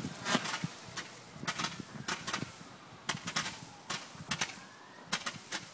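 Consumer fireworks going off: a spark fountain hissing while shots fire into the air, giving sharp, irregular pops and crackles in quick clusters, with a faint whistle falling slowly in pitch through the middle.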